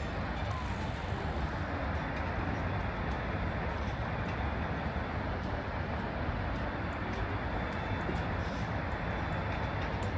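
Steady outdoor background noise: a low rumble with an even hiss over it, and no single event standing out.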